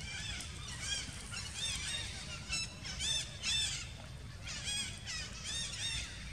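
Animal calls: runs of short, high, arching squeals, several overlapping, loudest about three seconds in, over a steady low rumble.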